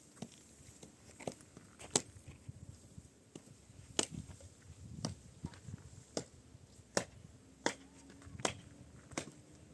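A series of sharp knocks or clicks, irregularly spaced at roughly one a second, some louder than others.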